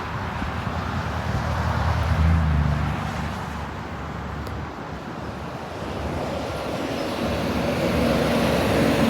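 Road traffic going by: a steady noise of passing cars, with one vehicle's rumble swelling about two seconds in and another building near the end.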